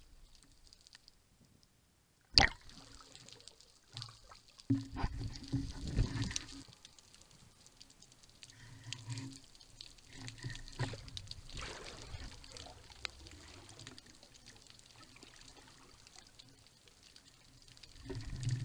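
Underwater water sounds around a freediver: a single sharp click about two and a half seconds in, then faint, uneven liquid sounds that come and go.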